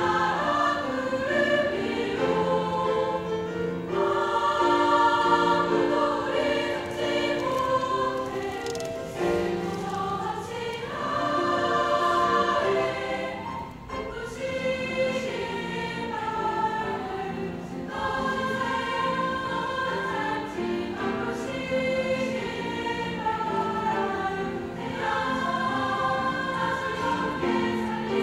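Girls' high-school choir singing a piece in parts, many voices holding notes together, with a short dip between phrases about fourteen seconds in.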